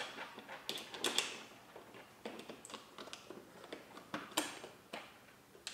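Irregular small clicks and taps of parts being handled as a gear is pressed into place in an open gel blaster gearbox, with louder clicks about a second in and a little past four seconds.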